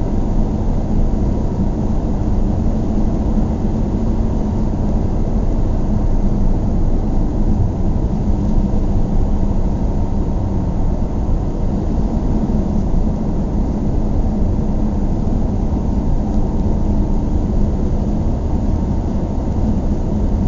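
Car running steadily: a continuous low rumble that neither rises nor falls in pitch.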